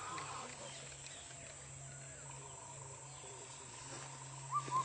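Bird calls, faint at first, with two or three short, louder call notes just before the end, over a steady low hum.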